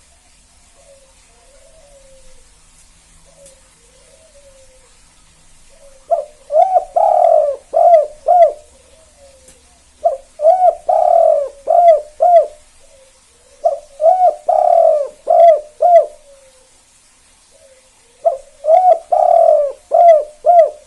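Spotted dove (tekukur) of the "kuk 2" song type singing its cooing phrase four times, each phrase a few coos with one long drawn-out coo followed by two short closing "kuk" notes. Fainter, softer coos are heard in the gaps between phrases.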